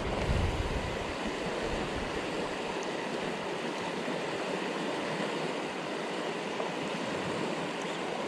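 River water rushing steadily over rock-bar rapids, with a brief low rumble at the very start.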